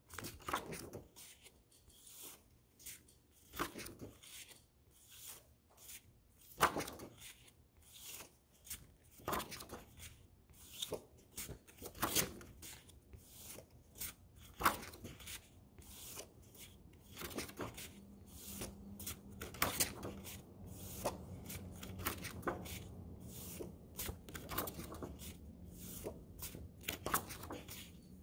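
Large paper flash cards being flipped one after another off a stack: sheets rustling and brushing against each other, with short crisp paper clicks and slaps at irregular intervals, a few of them louder.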